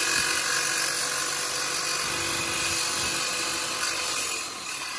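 Corded jigsaw cutting through thin metal, a loud steady rattling buzz that eases slightly near the end.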